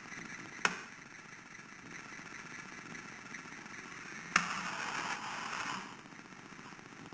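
Tomy gearbox motor in a Lego Technic toy airplane whirring as the plane drives across a wooden floor, getting louder as it comes close. Two sharp knocks cut in, one under a second in and one about four seconds in.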